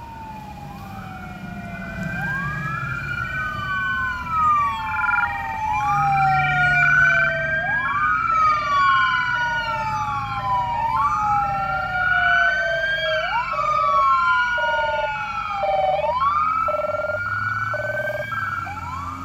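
Sirens of emergency vehicles arriving. One is a wail siren that sweeps up quickly and down slowly about every two and a half seconds. From about five seconds in, a second siren alternates between two tones. Vehicle engines rumble underneath.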